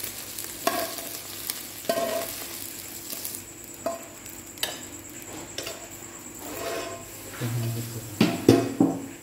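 Spatula scraping and knocking fried rice out of a hot frying pan, over a faint sizzle, the pan ringing briefly after some knocks. A few louder knocks come near the end.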